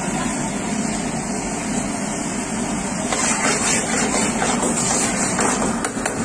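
Steady low roar of commercial kitchen equipment. From about three seconds in, a steel ladle stirs and scrapes through thick curry gravy in a metal pan.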